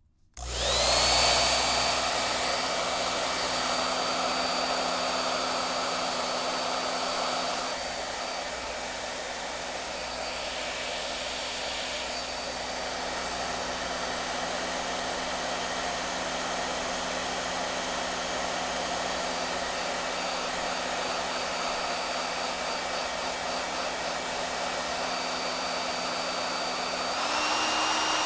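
Hair dryer switched on, its motor whine rising quickly to speed, then running steadily with a rush of air and a high whine. The sound drops a little about eight seconds in, and the whine steps up higher near the end.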